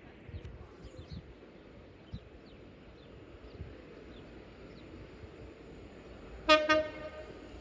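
Class 66 diesel locomotive sounding its horn on approach: one short, loud blast of under a second, about six and a half seconds in.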